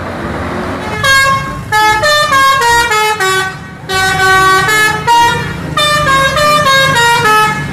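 Tour bus's multi-tone musical horn ("telolet" horn) playing quick melodies of stepped notes, in three runs with short breaks near four and five and a half seconds in, over low engine and traffic noise.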